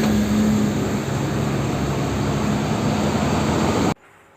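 A steady engine-like rumble with hiss and a low hum, cutting off abruptly about four seconds in.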